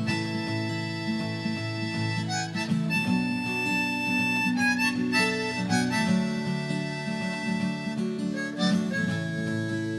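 Instrumental song intro: harmonica playing long held notes over a strummed acoustic guitar.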